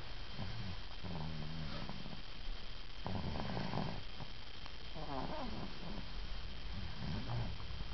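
A child snoring on both the in-breath and the out-breath, a 'round-trip' snore as heavy as an adult's. There are about five separate rasping snores.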